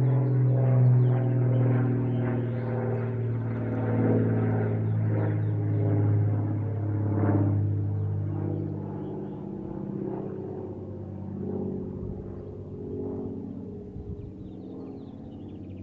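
Light propeller airplane's piston engine running steadily. It is loudest in the first several seconds, then slowly fades.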